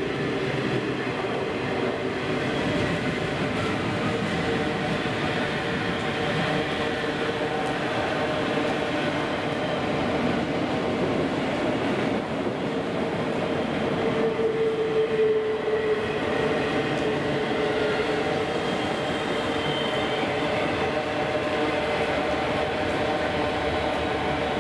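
Freight train of enclosed autorack cars rolling steadily past: a continuous rumble of steel wheels on rail, with faint steady squealing tones, one of them swelling briefly about fifteen seconds in.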